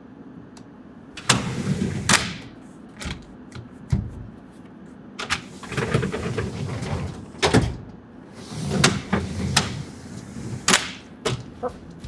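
Hard knocks, clicks and scraping as the aluminium side rail of a retractable tonneau cover is worked back into place along a pickup's bed rail, in irregular clusters with short pauses between them.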